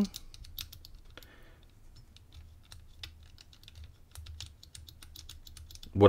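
Small, irregular clicks of the Master Lock Pro Series 1178 padlock's number dials being turned by a fingertip, one position at a time, while the combination is decoded by feel.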